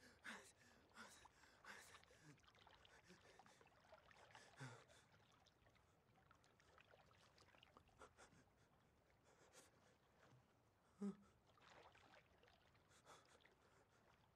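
Faint, ragged crying from a young man: gasping breaths and soft sobs, with one louder sob about eleven seconds in.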